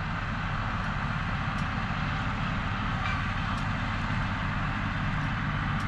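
John Deere 5045E tractor's three-cylinder diesel engine running steadily at working speed, driving an MX8 rotary cutter through the PTO while bush hogging.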